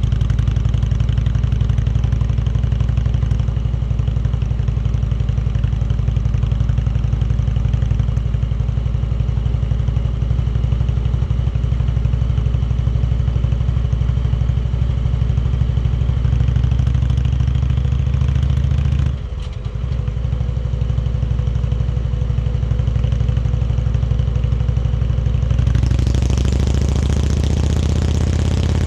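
Indian Chieftain Dark Horse's V-twin engine running steadily while riding. The engine note briefly drops about two-thirds of the way through, and the sound grows louder and brighter near the end.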